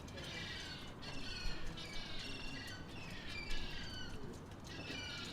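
A small songbird singing short phrases of quick, falling chirps, about five phrases in a row, over a steady low rumble of harbour ambience.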